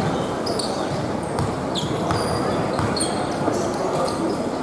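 Basketball game play in an echoing sports hall: sneakers squeaking sharply on the court floor many times and a basketball bouncing, over a steady murmur of spectators' voices.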